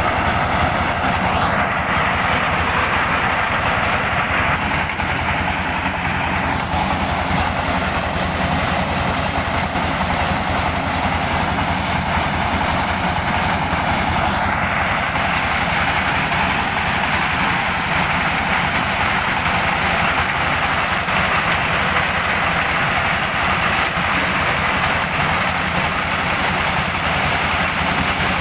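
A diesel-driven mobile corn sheller runs steadily under load. The engine's drone sits under a dense clatter and rush as cobs are threshed and shelled kernels spill out.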